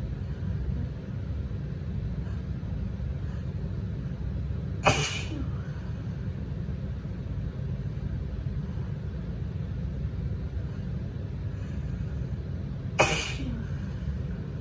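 A woman sneezing twice, about eight seconds apart: each is one sudden, sharp sneeze. A steady low rumble runs underneath.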